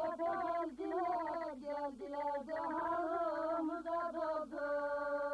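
Unaccompanied singing of a Turkish folk song, one melodic line with wavering, ornamented notes, settling into a long steady held note near the end.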